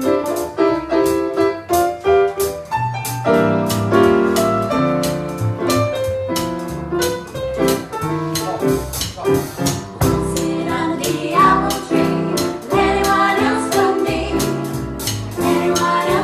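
Live music: voices singing over piano or keyboard, with a steady beat.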